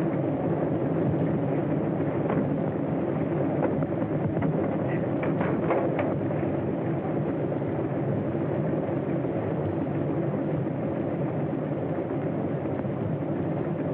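Steady, unbroken drone of a propeller airplane's engines on an old, dull-toned film soundtrack, with a few faint clicks in the first half.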